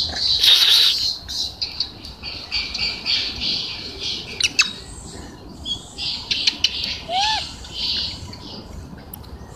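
Harsh, squawking animal calls in repeated bursts, with a short rising-and-falling call about seven seconds in.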